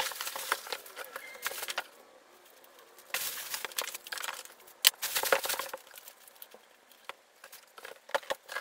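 Cardboard shipping box being opened and its packaging handled: rustling and scraping with scattered knocks and clicks, in two busy stretches with a short pause between and a few stray clicks near the end.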